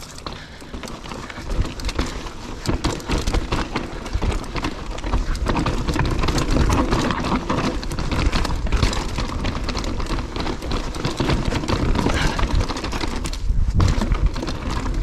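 Mountain bike rolling fast over a rocky, technical trail: a dense clatter of tyres striking rock and the bike's frame and chain rattling, over a steady rumble. There is a short lull near the end before the clatter resumes.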